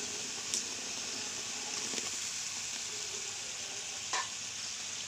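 Tomato puree and spice masala sizzling steadily as it fries in oil in a kadai, with two short clicks, one about half a second in and one about four seconds in.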